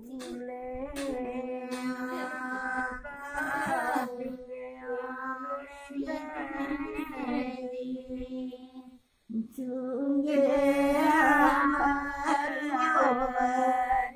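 Women singing a traditional Himachali wedding folk song in long, drawn-out phrases, without instruments. The singing breaks off briefly about nine seconds in, then comes back louder.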